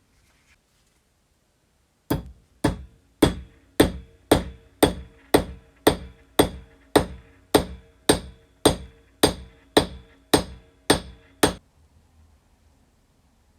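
A hammer striking metal eighteen times in a steady rhythm, a little under two blows a second, each blow ringing briefly. The blows begin about two seconds in and stop near the end.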